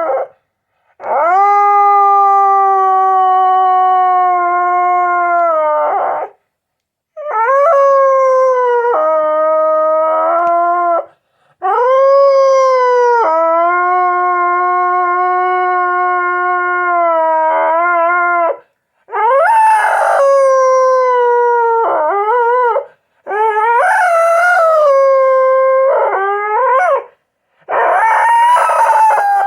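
A pet dog howling: a series of about six long howls, each lasting several seconds, with brief pauses between. The later howls waver up and down in pitch.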